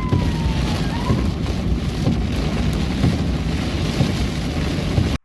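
Heavy thunderstorm downpour: a dense hiss of rain over a deep, steady rumble, with a faint falling tone in the first second. The sound cuts off suddenly at the end.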